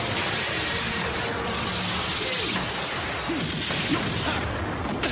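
Dense action-film sound effects: a steady rushing noise with whooshes and crashing impacts, and a few short pitch glides in the middle.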